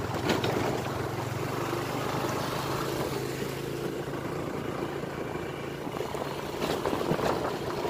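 Engine of a moving road vehicle running steadily, heard from on board as it drives along a rough village lane. The low engine hum drops away about two-thirds of the way through.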